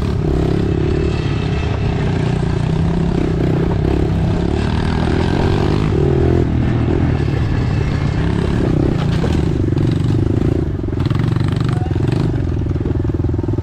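Pit bike engines running along a dirt trail, the rider's own bike loudest and close, its pitch rising and falling as the throttle opens and closes, with some rattle from the bikes over the rough ground.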